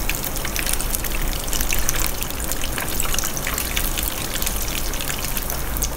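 Stuffed egg halves with a minced-pork and vegetable filling frying in a pan of hot oil over medium-low heat: steady sizzling with many small crackles from the bubbling oil.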